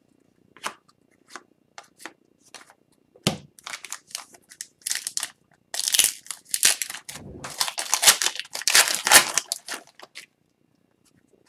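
A few light clicks of trading cards being handled, then the crinkling and tearing of a hockey card pack's foil wrapper as it is torn open. The crinkling grows loudest over the later seconds.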